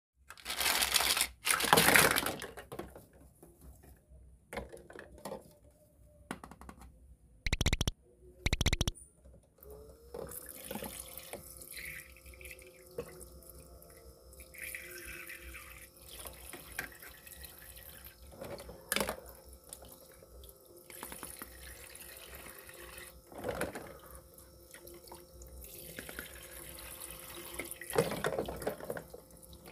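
Toy kitchen sink's small battery-powered pump faucet running, a steady hum with water trickling, switching on about a third of the way in with a brief rising whine. Plastic toy dishes clatter, loudest at the start and again a few times later.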